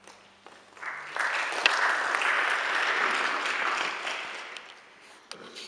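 Audience applauding: the clapping builds quickly about a second in, holds, and dies away over the last second or so.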